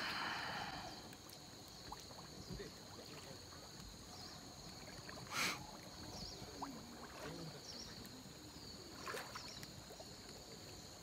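Faint sloshing of pond water as a man wades chest-deep and pushes a hand net through it, with one short splash about five seconds in.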